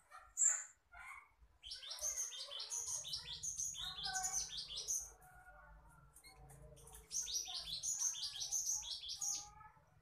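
Pied bushchat singing: two phrases of rapid, high chirping notes, each about three seconds long, with a short note before them.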